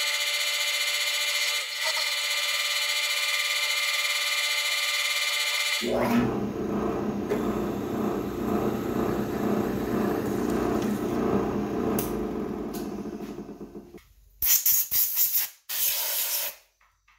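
A milling machine's spindle running with a steady whine, then cutting into the end of a steel threaded rod held in the vise with a rougher, pulsing cutting noise. Near the end the sound comes in a few short bursts.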